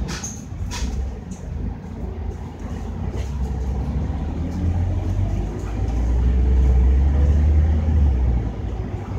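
Scania K310UD double-decker bus's nine-litre five-cylinder diesel running on the move: a steady low rumble with a few light clicks near the start. The rumble swells about four and a half seconds in, stays at its loudest for a couple of seconds, then eases off near the end.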